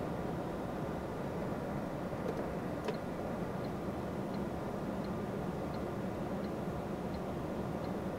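Steady engine and road drone of a truck heard from inside its cab while driving. From about three and a half seconds in, a faint regular ticking joins it, about three ticks every two seconds.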